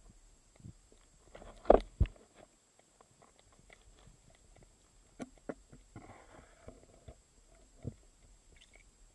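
Muffled underwater clicks and knocks picked up by a submerged camera, with two louder thumps about two seconds in and a brief fizz of noise near the middle.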